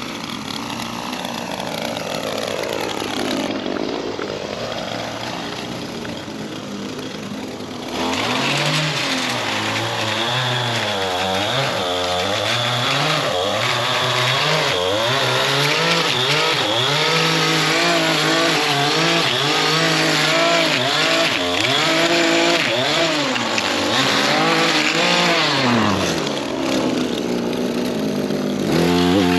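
Small two-stroke engine of a gas edging tool, run with the throttle squeezed and let off so the pitch keeps rising and falling. About eight seconds in, it jumps abruptly louder.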